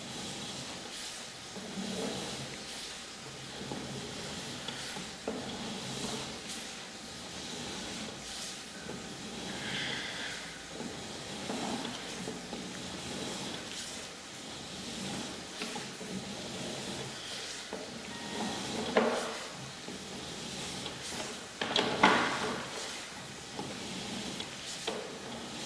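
Sewer inspection camera's push cable being worked through the line: irregular scraping and sliding with scattered knocks, the loudest about 19 and 22 seconds in.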